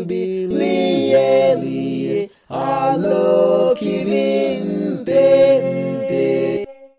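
Several voices singing the closing phrase of a hymn a cappella in four-part harmony. There is a short breath about two seconds in, and the singing ends on a held final chord that stops abruptly.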